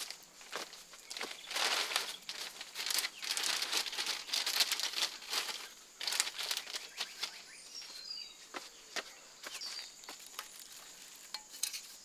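Plastic sheeting crinkling and rustling in repeated bursts as it is handled and smoothed over a roof, thinning out after about six seconds to a few scattered crackles.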